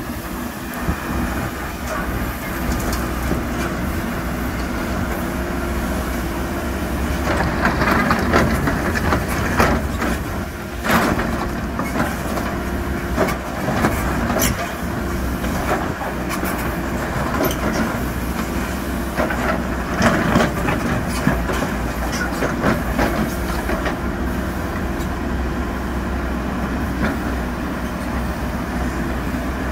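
Heavy diesel construction machine engine running steadily, with bursts of metallic clanking and knocks over it.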